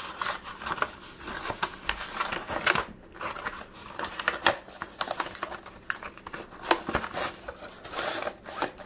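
Thin plastic shim sheets crinkling and rustling as they are handled and pushed down into a subwoofer's voice-coil gap, with a run of quick crackles and clicks.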